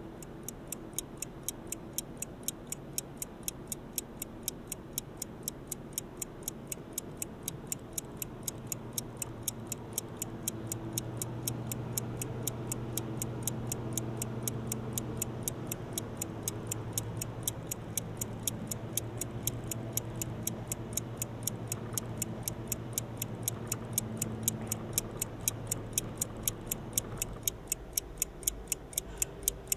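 Fast, even clock ticking, several ticks a second, over a low sustained drone that swells in the middle and drops out shortly before the end.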